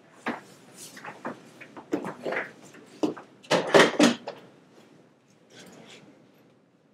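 Knocks, clunks and short scrapes of a patient getting off a chiropractic treatment table and moving to a chair, the loudest cluster about three and a half to four seconds in.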